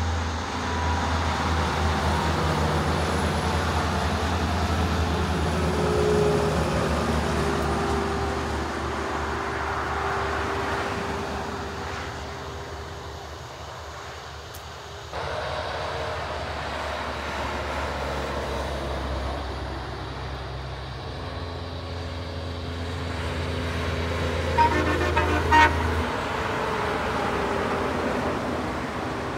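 Heavy trucks passing on a motorway, with steady engine and tyre noise that breaks off abruptly about halfway through where a second pass begins. Near the end come two short, loud horn toots from a passing truck.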